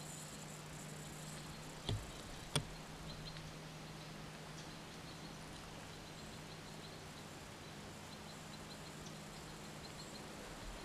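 Quiet outdoor background with a steady low hum and faint, scattered high ticks, broken by two sharp clicks close together about two seconds in.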